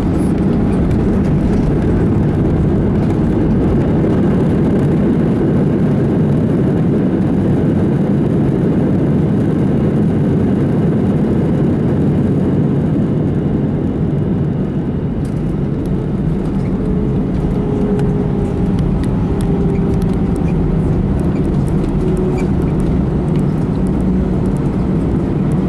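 Cabin noise of an Airbus A319 rolling out on the runway just after landing: a steady rumble of its CFM56 engines, wheels and airflow, easing slightly about halfway through.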